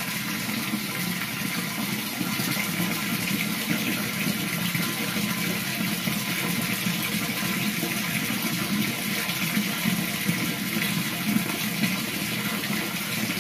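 Water running steadily into a shallow plastic tub, churning and bubbling the surface.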